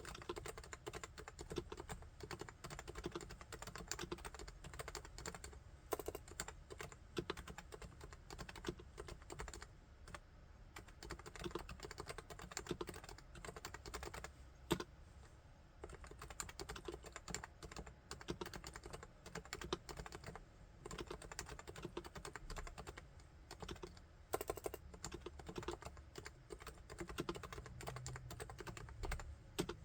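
Continuous fast typing on a Topre Realforce R3 keyboard with electrostatic capacitive (Topre) switches. The keystrokes run on with a couple of brief pauses and one louder stroke in the middle.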